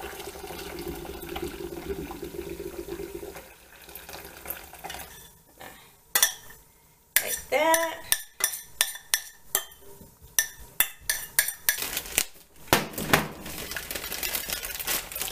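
Water being poured off boiled saltfish from a small stainless steel saucepan into a metal sink for the first few seconds. Then a utensil clinks and scrapes against the pot in many quick, sharp knocks as the fish is scraped out.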